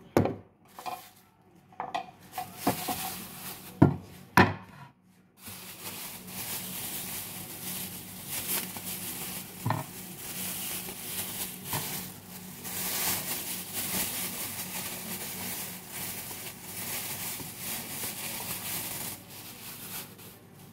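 A wooden cutting board and a kitchen knife are set down on a stone counter: a few separate knocks and clatters. About five seconds in, a plastic bag starts to crinkle and rustle steadily as fresh dill is pulled out of it.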